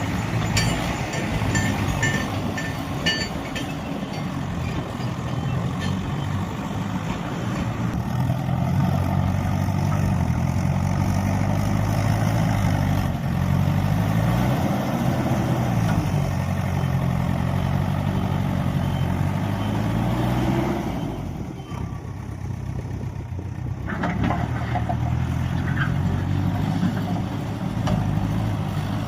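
Heavy diesel engine of earthmoving machinery working under load, its pitch rising and falling as it revs up and down, with a few short clicks in the first few seconds. The engine note drops for a few seconds about two-thirds of the way through, then comes back.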